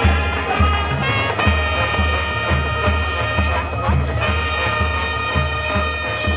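High school marching band playing its field show: brass holding full chords over a steady low beat about twice a second.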